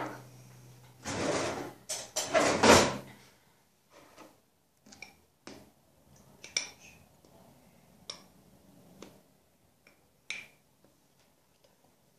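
Kitchen handling noises as flour is scooped from a plastic tub with a small glass: two loud rustling scrapes in the first three seconds, then scattered light knocks and clicks.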